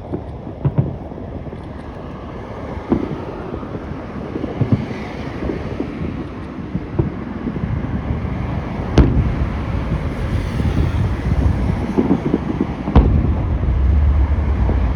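Aerial fireworks shells bursting in a series of booms a few seconds apart, the loudest about nine and thirteen seconds in, over a continuous low rumble that swells near the end.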